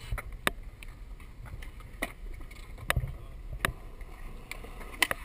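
Skateboard rolling on concrete: a low rumble from the wheels with sharp clacks every second or so, several coming close together near the end.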